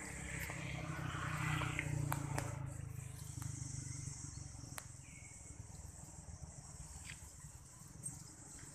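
A steady, high-pitched insect drone, with the low rumble of a vehicle engine that is loudest over the first few seconds and fades out about halfway through.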